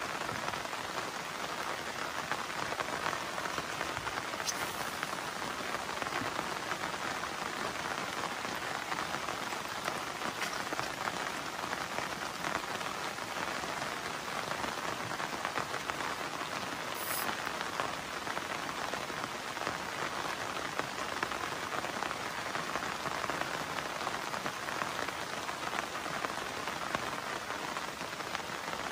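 Steady rain falling on a wide river's surface, an even hiss with no let-up.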